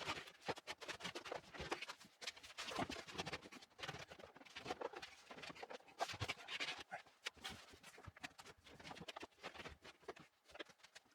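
Faint, irregular knocks, taps and clatter of hands-on work: a base cabinet, drain pipe and hoses being handled and fitted into place.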